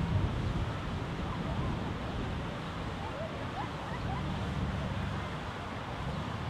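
Outdoor ambience by a city park lake: a steady wash of noise from the fountain, traffic and wind, with faint distant voices and a few short high chirps.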